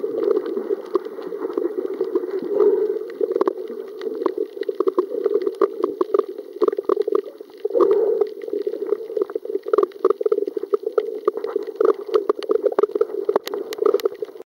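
Water heard through an underwater camera: a muffled, constantly fluctuating gurgling and bubbling wash with scattered clicks, a few sharper clicks near the end.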